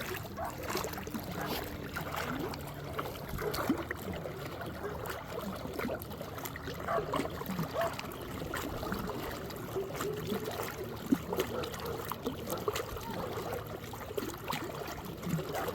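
Water lapping and trickling around a small boat, with scattered small clicks and splashes.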